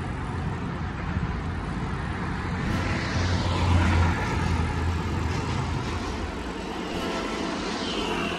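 Steady vehicle rumble, louder about three to four seconds in, then easing off.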